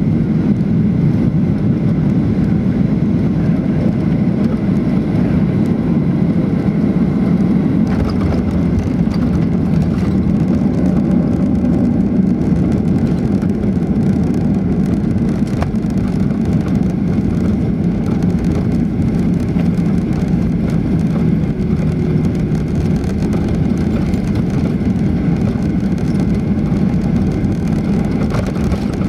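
Steady, loud cabin noise of a Boeing 737-700 with CFM56-5B engines touching down and rolling out on the runway, with spoilers raised.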